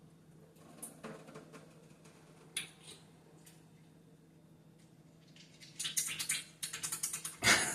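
Hands handling fruit: a few faint clicks and rustles, then about six seconds in a burst of dense crackly rustling that is loudest near the end.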